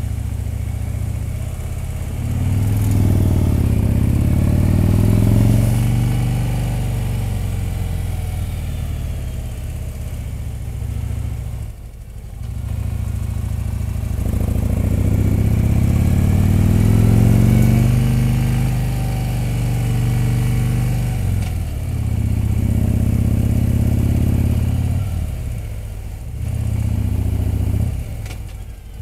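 Touring motorcycle engine heard from the rider's seat, pulling along a climbing mountain road. Its pitch rises as it accelerates, and the throttle eases off briefly about twelve seconds in and again near the end.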